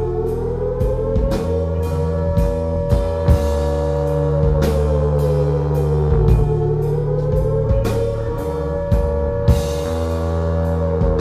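Live rock band playing: regular drum-kit hits over steady bass notes and electric guitar, with one loud held note that slowly dips and rises in pitch.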